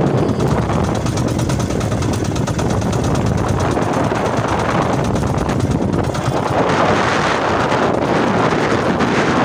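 Wind buffeting the phone's microphone aboard a small outrigger boat out on open sea: a loud, steady rush.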